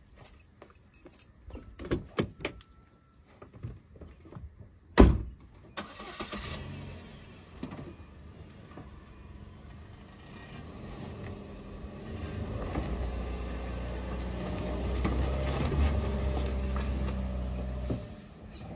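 Scattered clicks and knocks, then one loud thump about five seconds in; after it a car engine runs, growing steadily louder over the last several seconds and stopping just before the end.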